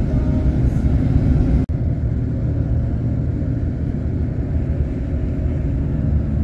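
Steady low rumble of an engine running while travelling, with a brief break about two seconds in where the recording cuts to another stretch of the same kind of sound.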